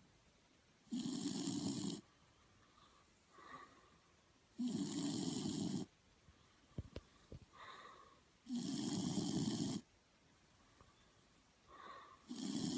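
A dog snoring in an even, slow rhythm: four rasping snores about a second long, roughly every four seconds, with softer breaths between them.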